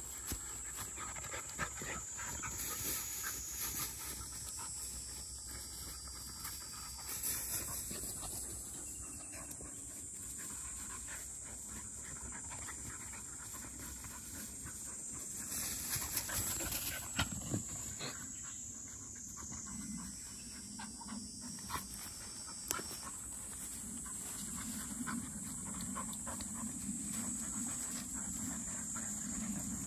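Labrador puppies play-fighting in grass: dogs panting, with scuffling and short knocks as they wrestle.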